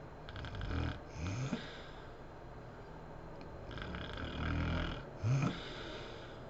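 A sleeping woman snoring: two snoring breaths, each a rough, rattling snore followed by a short snort that rises in pitch.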